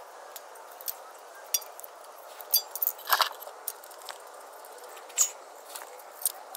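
Irregular metallic clinks and clicks of a ratchet and long extension working the 12 mm bolts of the engine-to-intake bracket loose, with a burst of the loudest clinks about three seconds in.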